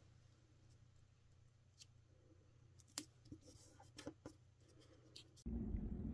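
Small paper pieces being handled on a craft desk: a few light taps and rustles as a small paper picture is set on a journaling card and pressed down with the fingertips. A little over five seconds in, a steady low hum starts suddenly.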